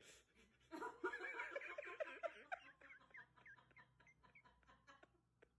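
A person laughing in a quick run of short pitched bursts that start about a second in and trail off over the next few seconds.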